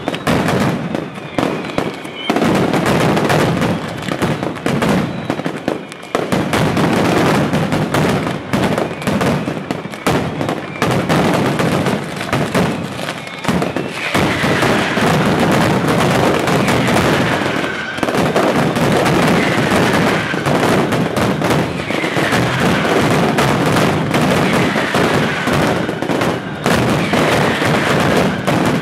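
Mascletà: strings of masclets, gunpowder firecrackers hung on ropes, going off in a dense, continuous barrage of loud bangs. Short falling whistles cut through now and then in the second half.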